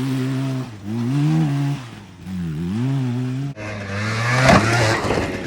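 Two-stroke engine revving up and down on a motocross track, with the throttle chopped and reopened about one and two seconds in. Near the end the engine note turns rough under a burst of clattering noise with a sharp knock, the loudest moment.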